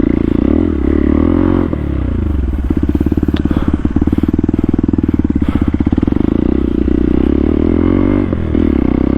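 Motorcycle engine running on an off-road trail. The revs fall about two seconds in, then it runs steadily at low revs.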